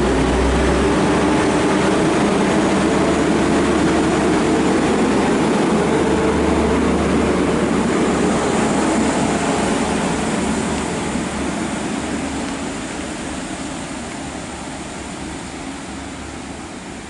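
Transport for Wales Class 175 diesel multiple unit pulling out of a station, its underfloor Cummins diesel engines working hard. The train is loud at first and fades steadily from about ten seconds in as it draws away.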